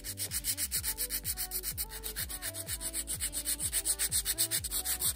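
Hand nail file rasping quickly back and forth across a hardened polygel nail, several even strokes a second, as the long nail is shaped.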